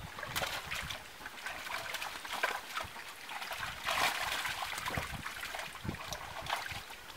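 Irregular splashing and trickling of water as a mesh net is handled in shallow pond water, with a louder splash about four seconds in.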